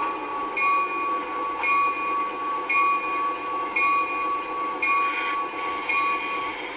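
Locomotive bell ringing steadily, one clang about every second.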